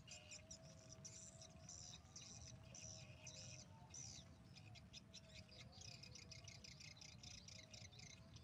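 Faint, rapid, repeated swiftlet chirps and twitters: the lure call that a swiftlet house plays from its rooftop speaker to draw the birds in. A faint wavering low tone runs underneath.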